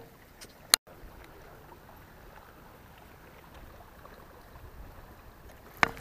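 Faint steady wind and water noise around a small fishing boat, broken by a single sharp click just under a second in and another sharp click near the end.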